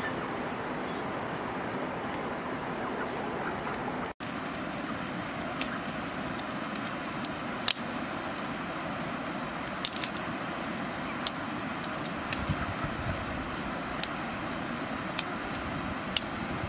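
Dry twigs snapping now and then as they are broken by hand for kindling, heard as a few sharp snaps over a steady outdoor hiss.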